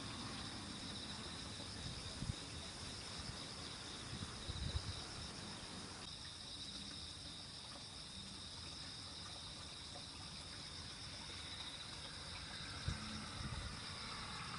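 Steady high-pitched chorus of singing insects, with a few faint low bumps.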